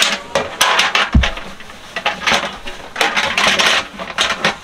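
Clattering and knocking of hard objects being handled, with a dull thump about a second in and a stretch of hissing noise around three seconds in.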